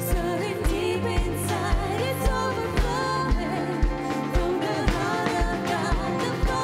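Pop-style worship song with singing over a steady low beat about twice a second.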